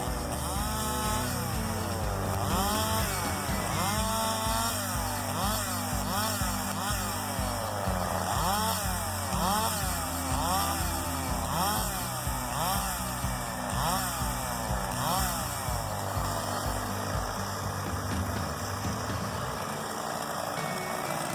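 A saw motor revving up and falling back over and over, about once a second, in repeated cutting strokes, with background music that has a steady beat underneath.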